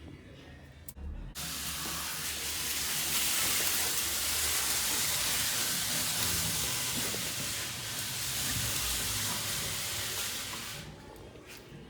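A steady, loud hiss that starts suddenly about a second in and fades out near the end.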